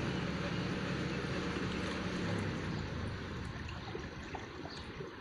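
Water flowing in a drain, a steady rushing trickle. A low engine hum runs under it and fades out about halfway through.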